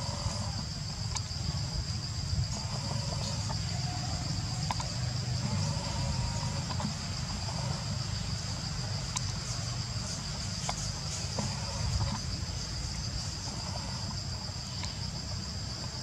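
Insects droning in a steady high-pitched chorus, with a low rumble underneath and a few faint ticks.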